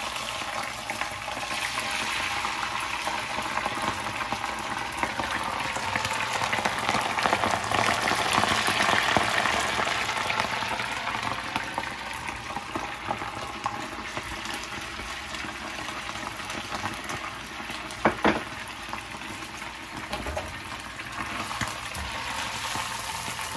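Batter-coated shrimp deep-frying in hot oil: a steady sizzle, loudest around eight to ten seconds in. A single sharp knock comes about eighteen seconds in.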